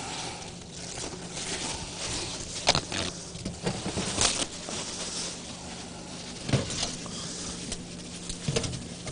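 Faint kitchen handling noises: a few short sharp knocks and clicks, spaced a second or two apart, over a steady low hum and hiss.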